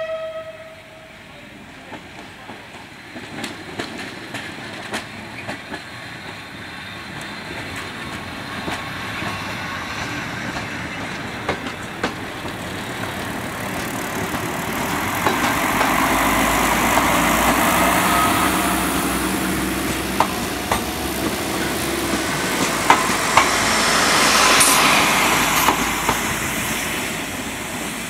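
Newag SA-138 diesel railbus running slowly past on a shunting move. The noise of its engine and wheels grows as it comes near, and its wheels click over rail joints and points. A horn blast dies away in the first second, and a brief high-pitched squeal comes near the end.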